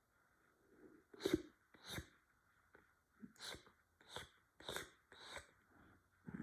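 A cat licking his fur: a steady run of short, wet licking strokes, about one every two-thirds of a second.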